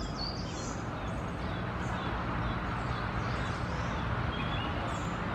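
Scattered faint, high bird chirps over a steady low background rumble.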